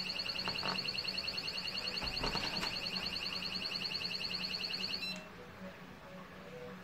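Siren of a Cuteefun wireless magnetic door and window alarm, sounding a high, rapidly pulsing electronic tone that stops abruptly about five seconds in.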